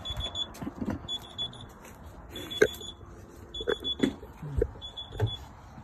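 A high-pitched electronic alarm beeping over and over, about once every 1.2 seconds with each beep about half a second long, with handling knocks and clothing rustles between. The beeping is a reminder alarm that the family first took for the new car's locking warning.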